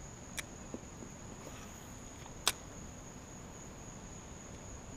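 Steady high-pitched drone of insects in the lakeside trees, with a few sharp clicks, the loudest about two and a half seconds in.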